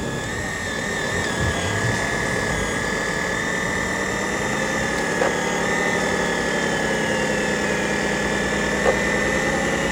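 Radio-controlled hydraulic scale-model CAT excavator running while it digs: a steady high whine from its hydraulic pump over a low, even hum. There is a short click about five seconds in and another near the end.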